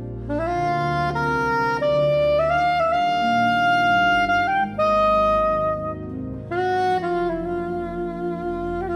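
Saxophone playing a slow melody of long held notes over sustained pipe organ chords, with short breaks between phrases.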